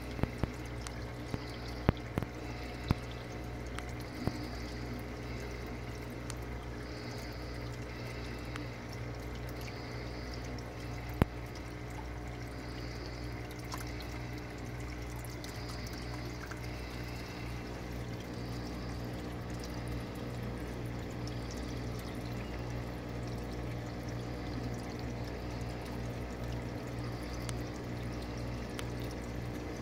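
Water from the drain pouring and splashing steadily into a reef aquarium sump, over a steady low hum. A few sharp clicks come in the first four seconds, and one more about eleven seconds in.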